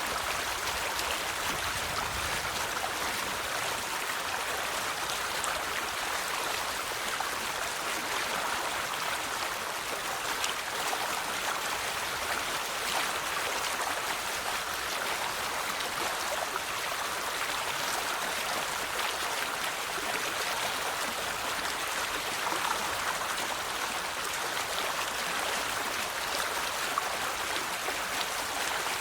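River water flowing steadily over stones, a continuous rushing babble with small splashes.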